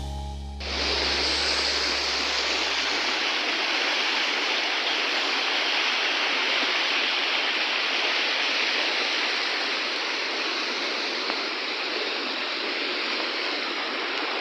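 Steady rushing of a waterfall, starting about half a second in. The low tail of background music fades out over the first few seconds.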